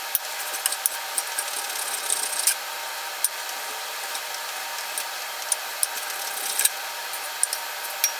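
A chisel scraping a sticker off aluminum flat bar: irregular sharp scrapes and ticks over a steady hiss. The sticker leaves residue on the metal, contamination ahead of welding.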